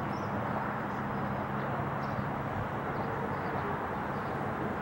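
Jet engines of a Boeing 777 airliner flying past, a steady wash of noise with a low hum underneath that does not change.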